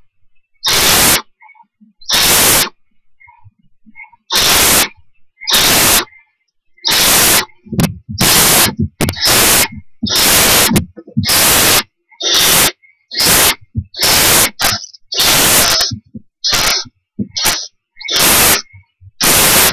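Barn owl owlets giving their rasping, hissing begging calls (the 'snore') over and over, each about half a second long. The calls come about a second apart at first, then faster and overlapping from several owlets in the second half.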